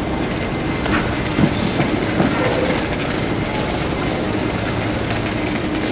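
Steady rumble of a vehicle in motion, with a few light clicks and knocks between one and two seconds in.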